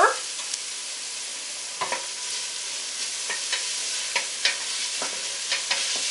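Chopped onion and garlic sizzling steadily in butter and olive oil in a hot pot, with scattered clicks and scrapes of a utensil stirring against the pot.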